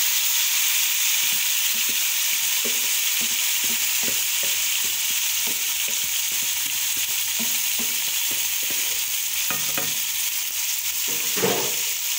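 Marinated sliced onions sizzling and frying in hot oil in a pan as they are tipped in from a bowl. Light knocks and scrapes recur about every half second, with one louder knock near the end.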